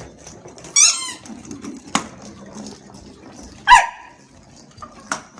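A squeaky dog toy squeaks briefly about a second in, and a Shiba Inu gives one short, loud bark a little before the four-second mark.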